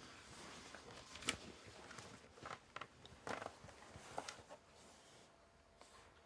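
Quiet handling noises of a laptop being lifted and opened on a bed: soft rustles of cloth and bedding with a few light clicks and knocks, the sharpest about a second in.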